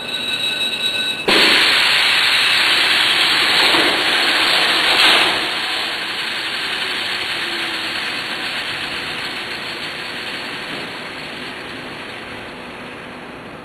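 A loud, even rushing hiss that starts suddenly about a second in, holds for about four seconds, then slowly fades. A few faint steady high tones sound before it.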